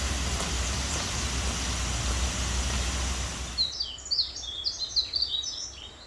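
Steady outdoor noise with a low rumble. About two-thirds of the way in it cuts to quiet, and a small bird sings a quick run of high chirps and twitters for about two seconds.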